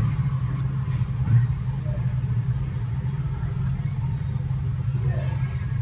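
A steady low hum, with the faint scratch of a graphite pencil shading on paper above it.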